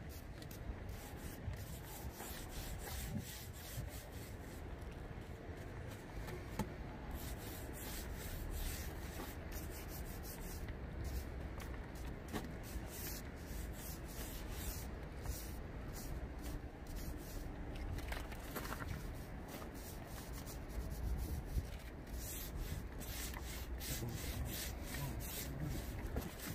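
Roller rubbing back and forth over resin-wet fiberglass mat in repeated strokes, laminating a channel cover with fiberglass.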